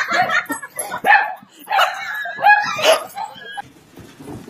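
A dog yipping and whining: a run of short, high-pitched calls, several rising in pitch, ending about three and a half seconds in.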